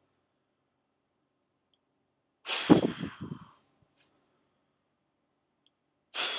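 A man's quick, sigh-like exhale, a rush of breath lasting about a second, comes about two and a half seconds in. Another breath starts near the end.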